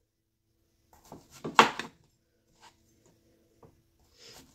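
Chef's knife slicing through a yellow squash and knocking on a cutting board: a few sharp knocks about a second and a half in, then a couple of faint ticks.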